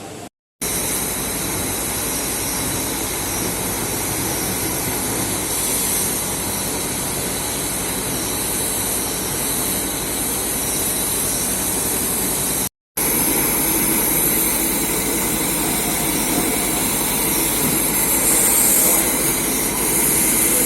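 Machine running with a steady, loud hiss and a faint steady whine, broken twice by a sudden brief cut-out; this plausibly comes from the laser die-cutting machine.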